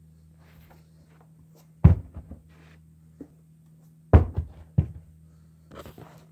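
A black steel-toe Brahma work shoe dropped onto carpet, landing with a thud about two seconds in. Two more thuds follow a couple of seconds later, then a softer rustle near the end.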